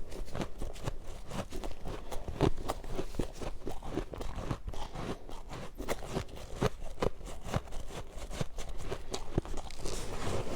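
Close-miked chewing of powdery freezer-frost snow ice: a steady run of crisp crunches, several a second.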